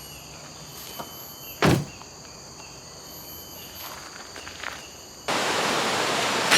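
Insects chirping steadily, with light rustling steps and a single loud thump about a second and a half in. Near the end it cuts suddenly to loud, steady rushing river water.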